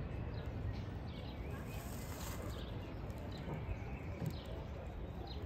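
Outdoor riverside ambience: a steady low rumble with small birds chirping every so often.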